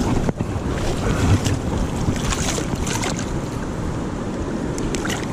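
Steady rush of fast-flowing river water around a wader's legs, with wind buffeting the microphone. A couple of brief clicks near the end.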